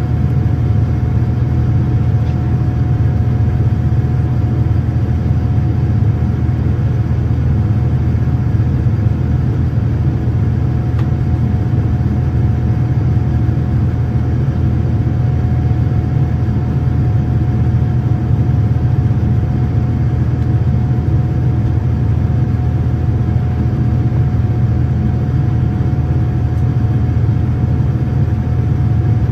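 Boeing 787-9's GEnx-1B turbofan engines heard from inside the cabin during the climb: a loud, steady low drone with a thin steady tone above it, unchanging throughout.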